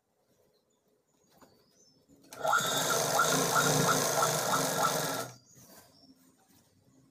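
Sewing machine stitching a seam through layered frock fabric in one steady run of about three seconds. It starts about two seconds in and stops abruptly, with faint rustle of cloth being handled before and after.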